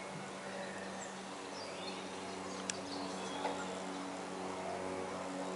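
Steady low drone of a distant propeller-driven light aircraft, growing slightly louder, with small birds chirping over it and one sharp click near the middle.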